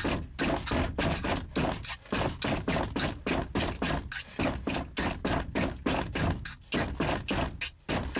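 A rapid, uneven run of sharp clicks or knocks, several a second.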